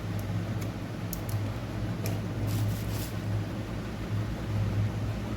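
A steady low electrical hum, with a few faint light clicks in the first three seconds as the board is handled.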